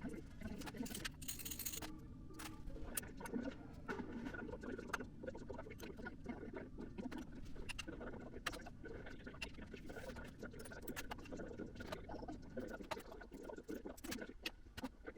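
Irregular light clicks, taps and scraping from handwork at a workbench, with no steady motor running.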